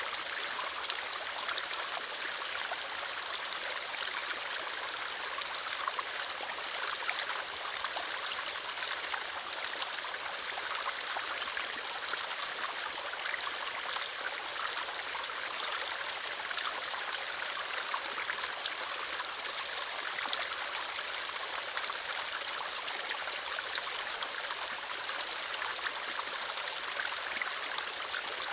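Stream water running and splashing steadily, a continuous rushing with fine droplet ticks.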